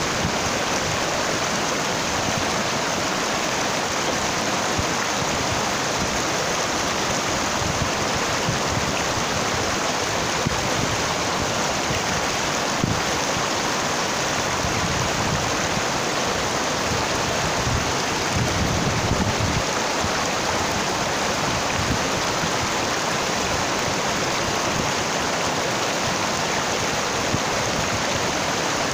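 Shallow rocky mountain stream running over boulders and cobbles: a steady, even rush of water.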